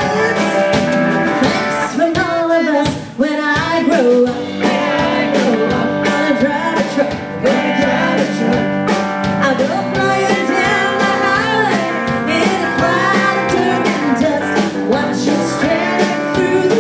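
Live band playing a song: a woman singing into a microphone over a drum kit and electric bass, with a steady beat.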